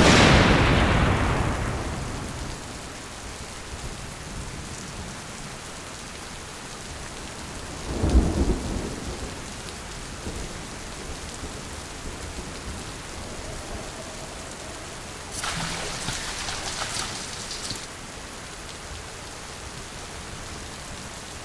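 Steady heavy rain with thunder: a loud thunderclap at the start that rumbles away over a few seconds, a deep boom about eight seconds in, and a crackling burst lasting a couple of seconds about two-thirds of the way through.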